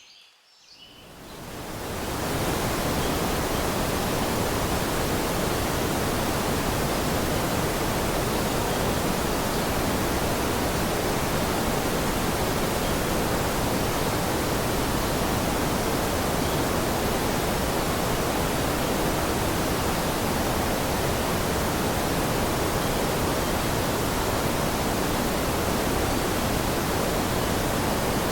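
Rushing water, a dense even hiss with no rhythm. It fades in from near silence over the first two seconds, then holds steady.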